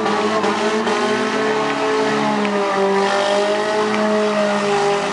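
Several compact cars' engines revving together at once, their overlapping pitches rising and falling as the cars are driven hard in a demolition derby.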